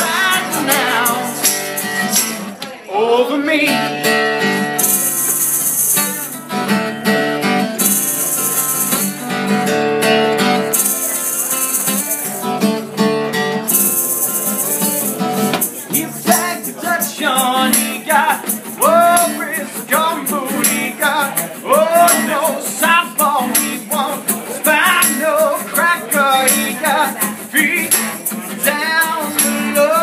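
Live acoustic music: a man sings while strumming an acoustic guitar, with a hand-held rattle shaken in several short spells between about five and fifteen seconds in.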